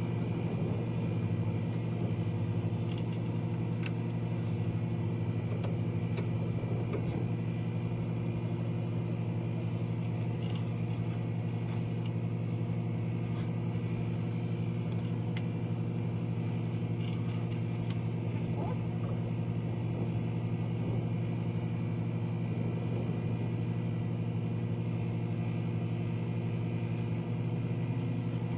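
Engine running steadily at one constant speed, a low drone made of several steady tones, with a few faint clicks scattered through it.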